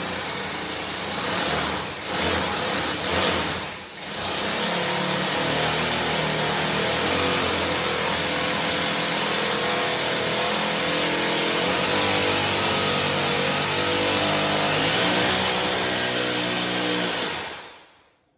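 Corded power drill working overhead into the ceiling: a few short bursts, then one long continuous run whose high whine steps up in pitch twice before it stops near the end.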